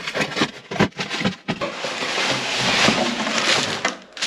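A cardboard shipping box being opened by hand, with a quick series of scrapes and knocks as the flaps are pulled back. It is followed by a long crinkling rustle of tissue paper being handled inside the box.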